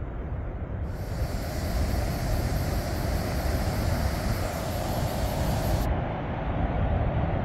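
Waterfall rushing: a steady noise of falling water that grows a little louder, with a low rumble underneath.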